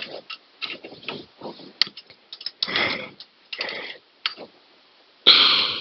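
Hand wrench tightening a small locking bolt with a nylon lock nut: irregular metal clicks and scrapes as the wrench works the bolt, with one louder half-second scrape near the end.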